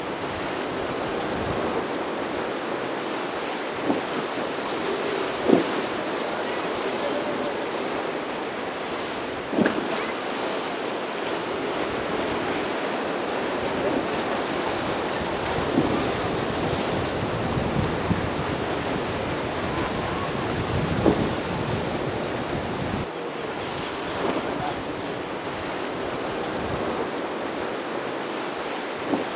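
Steady rush of wind and choppy water with wind buffeting the microphone, broken by several short thumps.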